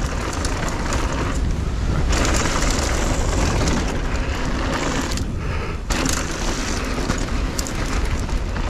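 Wind rushing over the camera microphone, with tyres rolling over loose gravel and dirt, as a mountain bike descends at high speed. The hiss drops away briefly a little past five seconds in and comes back abruptly.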